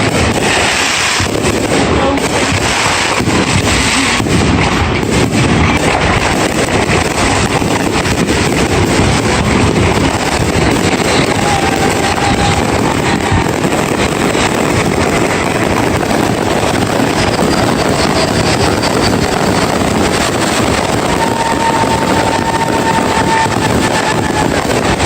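Fireworks going off in a dense, continuous barrage of crackling and popping, with a few brief faint whistling tones.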